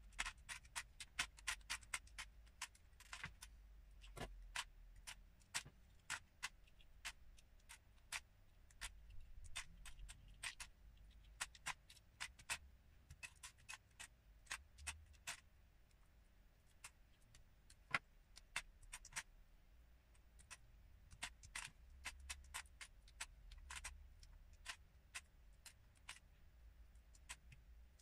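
Lego bricks being pulled apart by hand: irregular sharp plastic clicks, coming thick and fast at first, thinning out a little past the middle, then picking up again.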